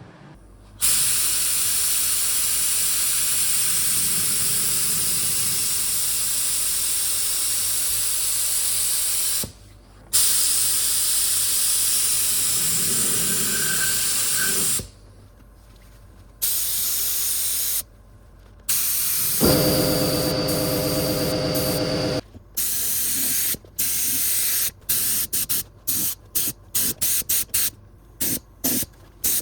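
Spray gun hissing in long bursts as coating is sprayed onto the car body, then a run of short, quick bursts near the end. A low hum sounds for about two seconds in the middle.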